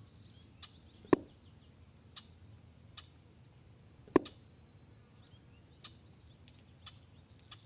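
Two sharp shots from an EDgun Leshiy 2 PCP air rifle, about three seconds apart, with a few faint ticks between them and birds chirping faintly.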